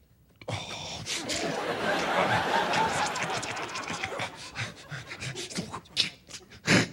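Studio audience laughing, starting suddenly about half a second in and fading over a few seconds, with a short loud sound near the end.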